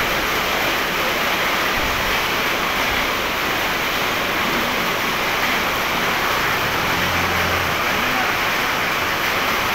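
Steady, loud rushing hiss of eatery background noise, with faint indistinct voices of other diners underneath.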